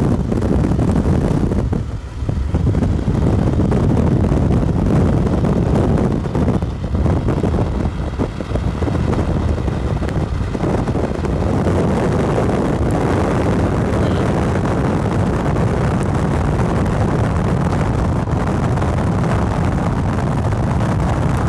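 A car driving at speed: steady road and engine rumble, with wind buffeting the microphone.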